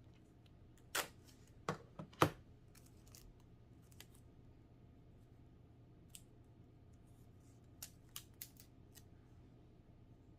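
A freshly printed thermal label strip being handled at the label printer: four sharp clicks in the first two and a half seconds, then a few fainter ticks later on.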